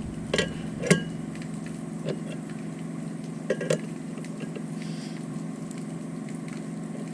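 Hammer striking a prop knocker (harmonic puller) fitted on a boat's propeller shaft: sharp metallic clanks with a brief ring, two in the first second, one about two seconds in and a quick pair about three and a half seconds in. The strikes send shock into the propeller to break it loose from the shaft, over a steady low hum.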